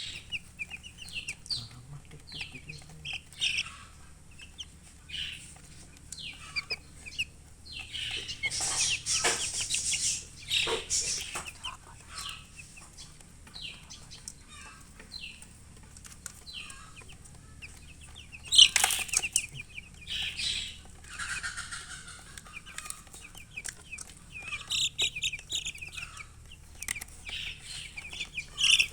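Chicks cheeping in many short, high calls, with a hen clucking. A few louder, noisy bursts stand out; the loudest comes a little past halfway.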